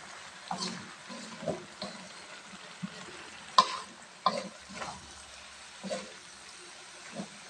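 Wooden spatula stirring young jackfruit in a metal wok, with irregular scrapes and knocks against the pan over a faint frying sizzle. The sharpest knock comes about halfway through.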